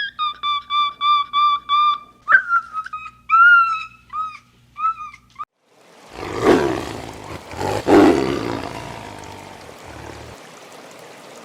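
A run of short, high, whistle-like animal calls, quick and even at first and then varied and bending. After a brief pause come two loud, rough roars from a large animal, dying away slowly.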